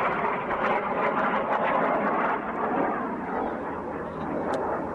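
Fixed-wing aircraft flying overhead: a steady engine rush that eases a little after the middle.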